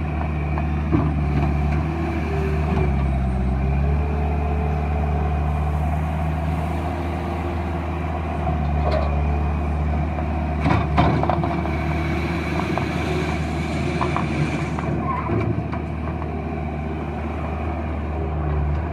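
Bobcat 873G skid steer loader's diesel engine running steadily, its note dipping briefly about three seconds in, with a few sharp clanks around ten to eleven seconds in.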